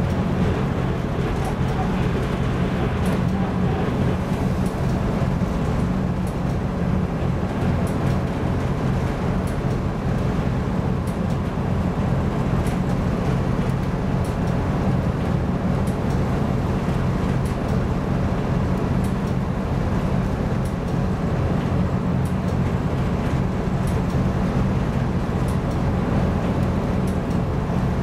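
Ship's engine and machinery running with a steady low hum, heard from inside the bridge, over a constant rushing noise.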